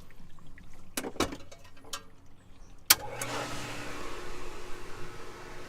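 A few clicks, then a sharp click about three seconds in as the pool pump is switched on. The pump motor then runs with a steady hum and a rushing noise, pushing water through the sand filter on backwash.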